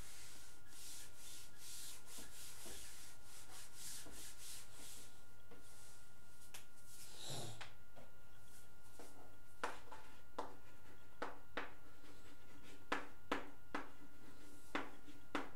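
Felt duster rubbing across a chalkboard in a run of quick strokes, wiping chalk off, with one heavier stroke about seven seconds in. From about nine seconds on, chalk tapping and scratching on the board in short separate strokes as words are written.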